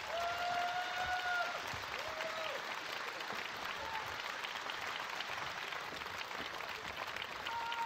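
Audience applauding steadily, with a few short held tones sounding over the clapping.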